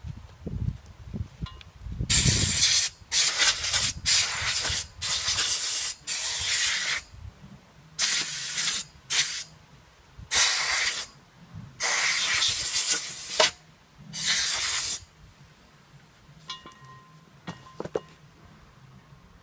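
Pressurised gas hissing from a nozzle in about ten short bursts, each lasting up to about a second and a half, as brake parts are sprayed or blown clean during brake work. A few faint metallic clinks follow near the end.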